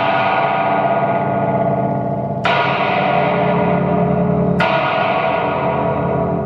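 Home-made blaster beam, a wooden beam with metal strings and a contact pickup, struck with a drumstick. It is ringing from a hit as it begins and is struck again about two and a half and four and a half seconds in, each hit a sharp attack followed by a long metallic ring that slowly fades.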